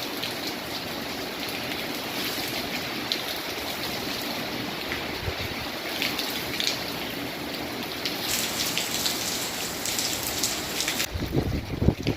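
Storm rain falling steadily, an even hiss with scattered sharper drop hits. Near the end, gusts of wind buffet the microphone with a low rumble.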